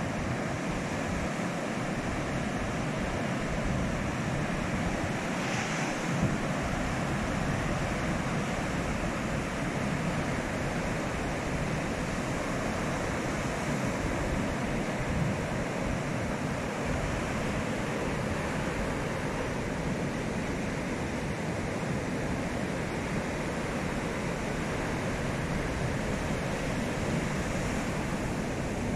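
Heavy ocean surf: large waves a couple of metres high breaking and washing in on a rough sea, heard as a steady, continuous rush of noise.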